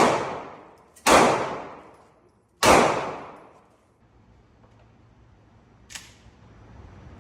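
Three loud single gunshots from a Draco AK-pattern 7.62×39 pistol, fired slowly about a second and a half apart, each with a long echoing tail. A much fainter shot follows about six seconds in.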